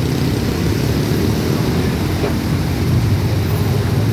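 Indonesian diesel-electric locomotive engine running with a steady low rumble.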